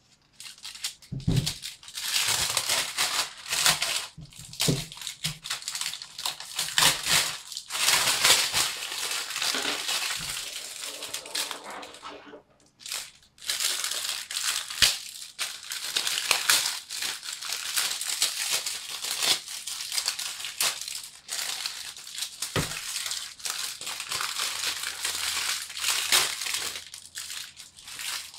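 Clear plastic packaging crinkling and rustling as it is handled and pulled off a penny skateboard, with a short pause about halfway through and a couple of light knocks.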